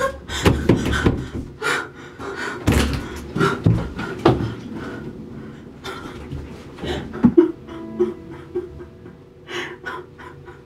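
Horror film soundtrack: tense score with a run of irregular thuds and knocks, dense at first and thinning out after about five seconds, then a held low drone tone in the second half.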